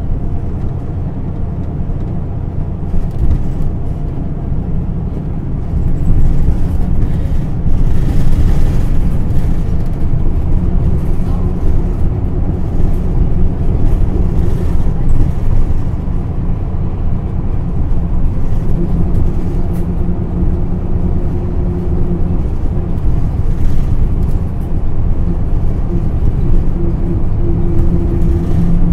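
Isuzu Erga PDG-LV234L2 city bus running, heard from inside the cabin: steady diesel engine and road rumble with the air conditioning running. It gets louder about six seconds in.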